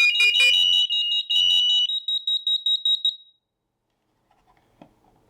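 Several interlinked SAFE-TECH smoke alarms sounding together: high-pitched rapid beeping at more than one pitch as the units go off as a group. The beeping cuts off abruptly about three seconds in.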